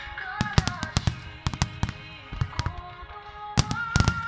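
Aerial fireworks bursting in a rapid, irregular series of sharp bangs and crackles, over accompanying music with long held notes. The heaviest bangs come about half a second in and again near the end.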